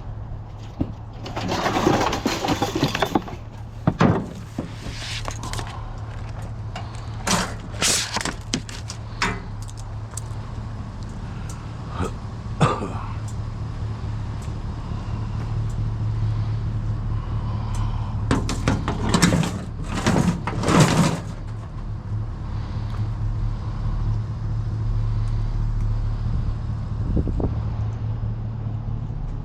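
A vehicle engine idling with a steady low hum, under intermittent knocks, rattles and scraping of metal scrap being handled, with clusters of clatter about two seconds in, around eight seconds in and near twenty seconds in.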